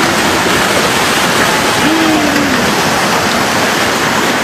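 Steady rushing noise of a debris-laden mudflow of floodwater surging through the streets. A short call from a person cuts in briefly about two seconds in.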